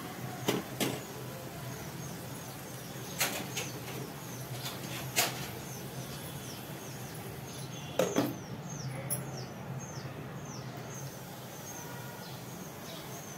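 A small bird chirping over and over, short high calls at about two a second, over a steady low hum. A few sharp clicks and knocks fall among the calls, the loudest about eight seconds in.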